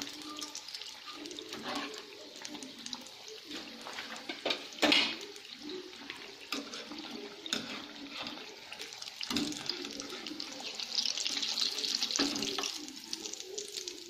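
Batata vadas deep-frying in hot oil in a kadai: steady sizzling with frequent crackling pops and a louder burst about five seconds in, while a metal skimmer turns them and lifts them out of the oil.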